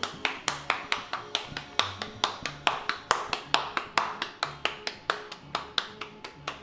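Hands patting a ball of masa dough flat between the palms to shape a gordita: a steady run of soft slaps, about four to five a second.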